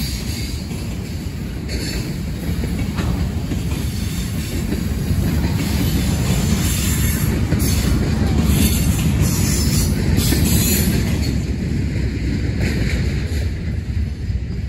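Norfolk Southern freight train's flatcars rolling past: a steady low rumble and rattle of steel wheels on rail, with a few brief bursts of high hiss from the wheels around the middle. The level eases near the end as the last car clears.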